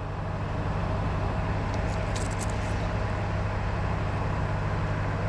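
Diesel freight train running past with a steady low engine drone and rumble, and a few brief high-pitched metallic squeals or clanks about two seconds in.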